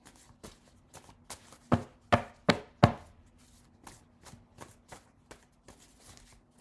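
A string of light taps and clicks of something handled against a hard surface, with four louder knocks in quick succession about two to three seconds in.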